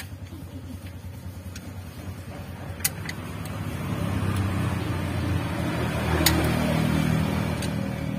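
A motor vehicle passing, its engine and road noise swelling over a few seconds and then easing, over a steady low engine hum. A few sharp metal clinks come from a socket wrench on the cylinder head bolts.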